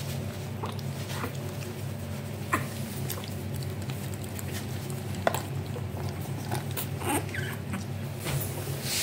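Lhasa Apso puppy giving several short, high squeaks and whimpers, scattered through, over a steady low hum.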